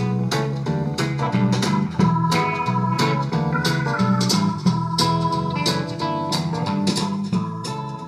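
Music with a steady beat played through the loudspeaker of a restored 1952 Saba Freiburg W2 valve radio, the recording fed into the set's pickup input and picked up by a microphone in front of it.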